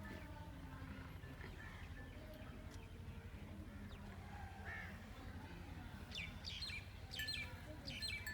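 Small birds chirping, with a cluster of short, high chirps in the last two seconds and fainter calls before, over a steady low rumble.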